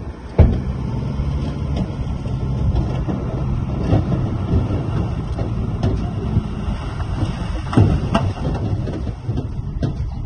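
Diesel engine of heavy earthmoving machinery running steadily, with sharp metallic clanks about half a second in and twice close together near the end.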